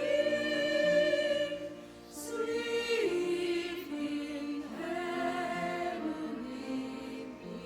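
Small mixed vocal ensemble singing a Christmas hymn in harmony over instrumental accompaniment, holding long notes with short breaks between phrases.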